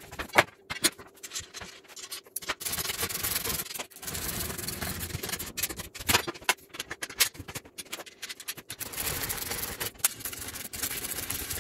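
Steel plow blade sections and a bracket being shifted and fitted together on cardboard: rubbing and scraping broken by sharp metal clicks and knocks, the loudest knock about half a second in.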